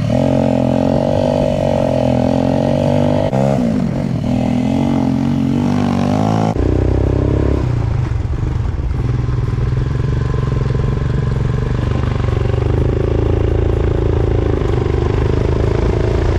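Royal Enfield Himalayan's single-cylinder engine running under way as the motorcycle is ridden. The revs dip and pick up again about four seconds in. The engine note changes abruptly a few seconds later.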